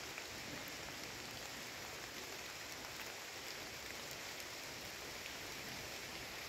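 Tropical rainstorm falling on rainforest foliage: a steady, even hiss of rain with faint scattered drop ticks.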